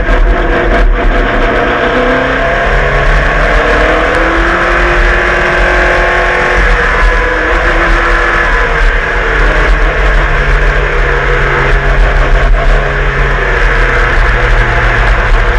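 Group A Holden VL Commodore V8 race car engine at racing speed, its note rising under acceleration and dropping back again and again as it is driven hard through the gears.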